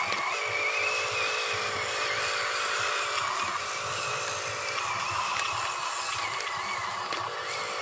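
Huina RC dump truck's small electric drive motor and gearbox whining as the loaded truck drives over dirt, the pitch wavering up and down with the throttle.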